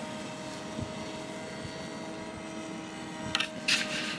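Bixler 2 RC plane's electric motor and propeller running with a steady whine. A couple of short bursts of rushing noise come about three and a half seconds in.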